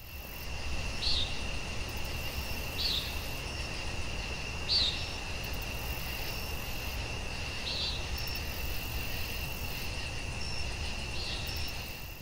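Outdoor nature ambience: a steady high insect drone, with a short chirp repeating every couple of seconds and a low rumble underneath.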